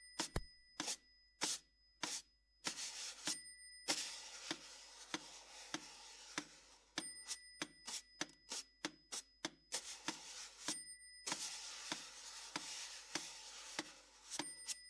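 Irregular taps, clicks and rubbing on a towel-damped snare drum topped with an upturned plastic cup, in sparse, uneven strokes. High, thin steady tones cut in and out between the strokes.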